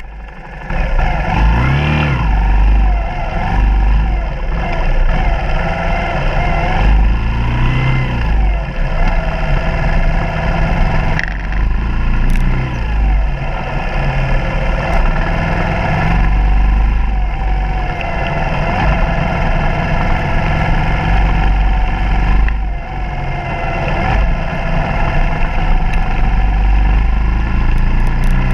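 Suzuki DR200's air-cooled single-cylinder four-stroke engine running under way on a dirt trail, its pitch rising and falling with the throttle, over a heavy low rumble. It comes up loud about a second in.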